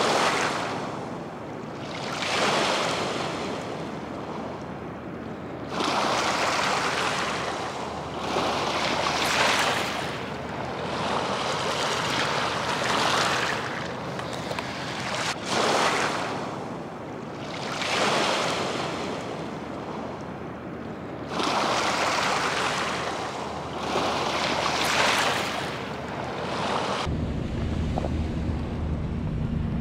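Waves washing in and drawing back on the shore, a swell about every three to four seconds. Near the end a steady low hum starts: a small quadcopter drone's propellers coming in to land.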